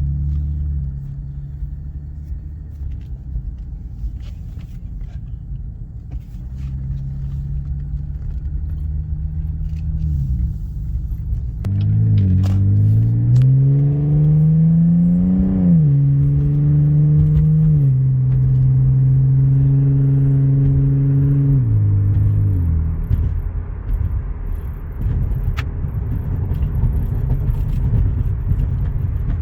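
Cadillac ATS with a muffler-deleted exhaust, heard from inside the cabin while driving: a steady exhaust drone over road rumble. About twelve seconds in it rises in pitch as the car accelerates, holds, and falls back about twenty-two seconds in.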